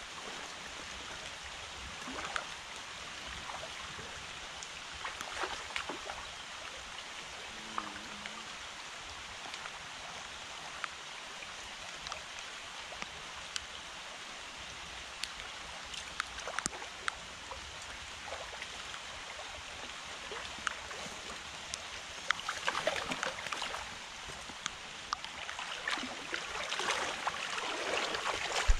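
Shallow creek water rushing steadily over a riffle, with scattered small splashes and ticks. Near the end it grows louder with the splashing of legs in waders moving through the water.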